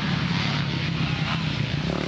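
Motocross bike engine running steadily with a loud, even note as the bike comes through a dirt corner toward the listener.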